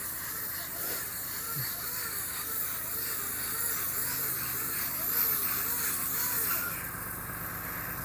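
McHale bale wrapper wrapping a haylage bale in stretch film, its machinery running steadily with a whine that rises and falls about twice a second, over a low engine hum and a hiss.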